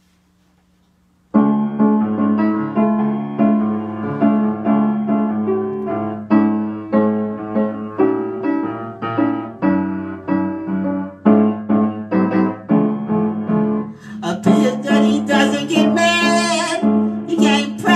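Piano played in a steady, chord-based accompaniment, starting abruptly about a second in. About fourteen seconds in, a woman's singing voice joins over the piano.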